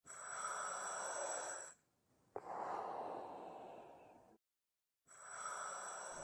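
Breathing sound effect: three slow breaths of about two seconds each, separated by short silences, with a thin high whistle over them.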